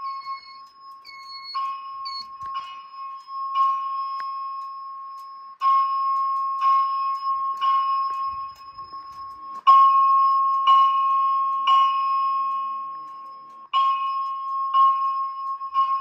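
A fire alarm system's notification appliances sounding a carbon monoxide alarm. Bell-like chime strikes come in groups of three, about a second apart with a pause between groups, over a steady high tone.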